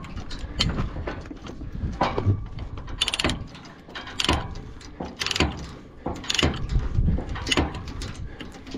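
Ratchet chain binder being worked to tighten a load chain: metal ratcheting clicks and clanks about once a second, with the chain rattling against steel.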